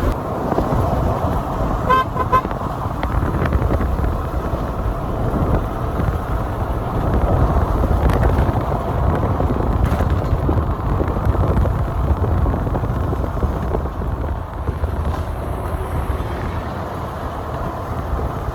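Steady low rumble of a moving road vehicle, with two quick horn toots about two seconds in.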